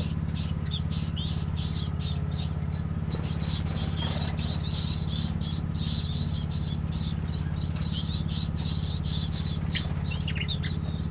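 A mixed aviary of finches, waxbills and Bourke parrots chirping continuously in many overlapping high, short calls. A steady low hum runs underneath.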